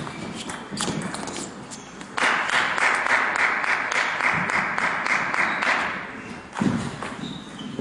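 Table tennis ball clicking off bats and table as a rally ends, then applause and clapping that starts abruptly about two seconds in and dies away about four seconds later. A low thump comes near the end.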